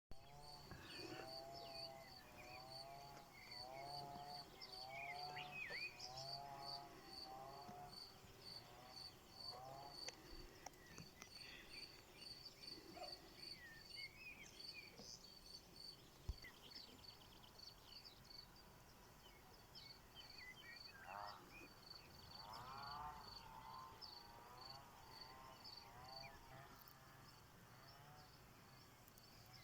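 Faint wild animal ambience: a high chirp repeats steadily about twice a second. Over it come warbling, wavering calls in the first ten seconds and again after about twenty-one seconds, with scattered short chirps.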